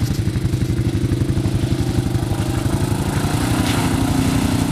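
CFMOTO quad bike's single-cylinder engine running with a steady, even low throb.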